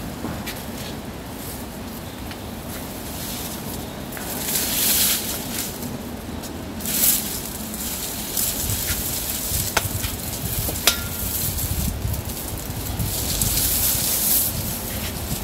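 Dry palm fronds and leaves rustling and crackling in bursts as they are knocked and pulled down with a long pole, with two sharp clicks a little past the middle and a low rumble in the second half.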